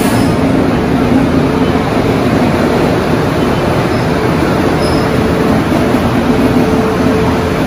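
Electric locomotive of an Indian Railways passenger express pulling in alongside the platform: a loud, steady rumble of the train on the rails with an even low hum over it.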